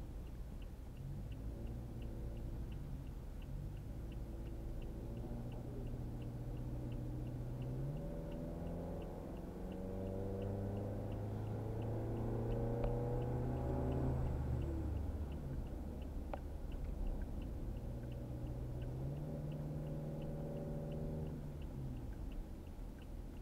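Car engine and road rumble heard from inside the cabin, the engine's pitch holding, rising and sliding down as the car pulls up a long climb. A faint regular ticking runs underneath.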